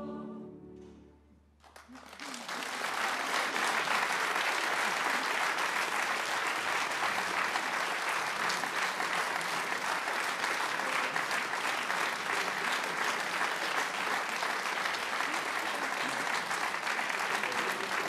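The last held chord of the choir and instruments dies away in the first second or so, then audience applause breaks out about two seconds in and goes on steadily.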